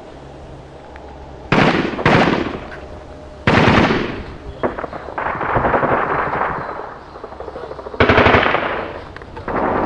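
Several bursts of rapid automatic gunfire from rifles, each starting sharply and fading out. The longest burst lasts about two seconds, in the middle.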